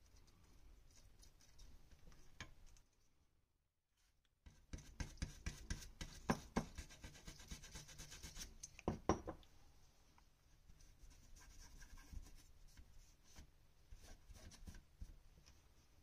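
A small bristle brush scrubbing the pads of a circuit board where a jumper has just been desoldered: a quiet run of scratchy strokes and clicks, after a brief dropout about three seconds in, easing off in the last few seconds.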